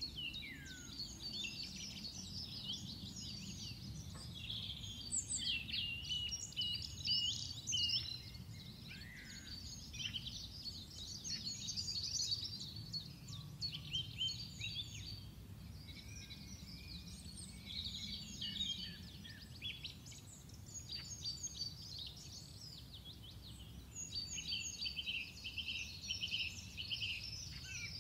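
Birds chirping and twittering continuously in quick, overlapping high calls, over a steady low background rumble.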